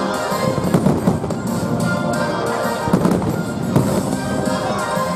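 Aerial fireworks bursting with sharp bangs every second or so, over orchestral music that is synced to the display.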